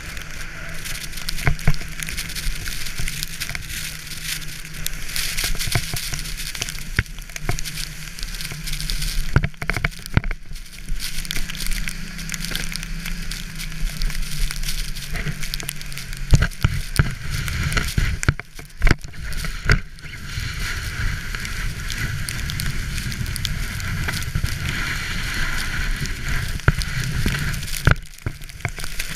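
Towed sled hissing and scraping over snow, with frequent knocks and jolts over bumps, while a snowmobile engine drones steadily ahead. The rush of noise briefly drops out a few times.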